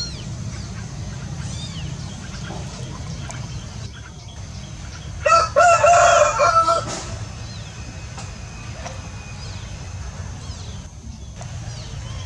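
A rooster crows once in the middle, a loud call of about a second and a half, over small birds chirping now and then and a steady low rumble.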